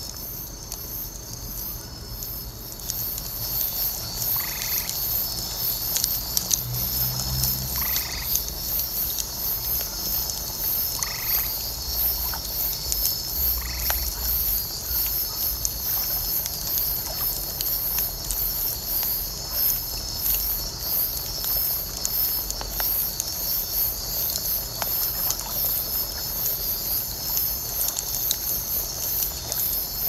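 Night chorus of frogs and insects, a steady high trilling with a pulsing buzz above it, and a few short frog calls about three seconds apart in the first half. Under it a wood bonfire crackles with scattered small pops.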